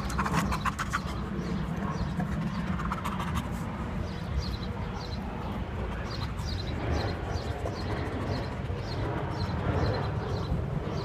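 A dog panting steadily with its mouth open, over a steady low rumble.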